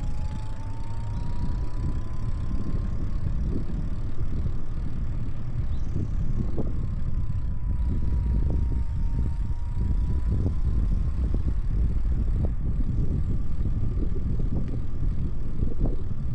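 Riding an e-bike on a paved path: a steady low rumble of wind on the microphone and tyre noise, with a faint thin electric motor whine that rises in pitch over the first few seconds and then holds roughly steady, plus occasional light knocks from bumps in the path.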